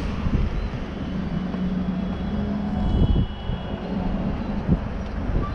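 Cars driving past close by at low speed: a steady engine hum over tyre and wind noise.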